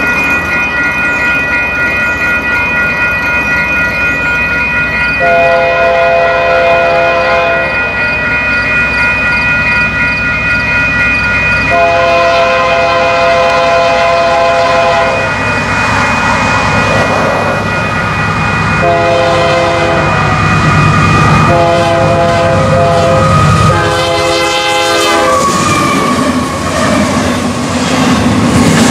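Union Pacific intermodal train's locomotive horn, a chord of several notes, sounding the grade-crossing signal: two long blasts, one short, then a final long blast with a brief break in it. Underneath, the rumble of the diesel locomotives and clatter of wheels on rail build up as the train comes on.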